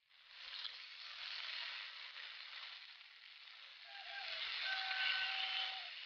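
Chicken wings sizzling in hot oil in a nonstick frying pan, starting suddenly and growing louder again about four seconds in.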